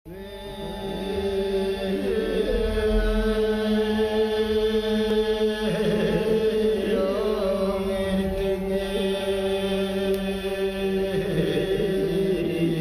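Chant-like music: a low, steady drone with a wavering melody above it, fading in over the first second or two.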